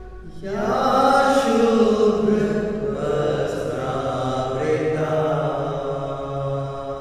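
Mantra chanting: a chanted invocation in long held notes, beginning about half a second in.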